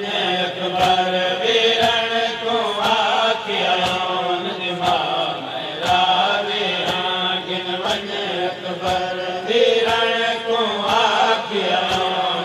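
Men chanting a noha, a Shia mourning lament, over a sharp beat about once a second: hands striking chests in matam, keeping time with the chant.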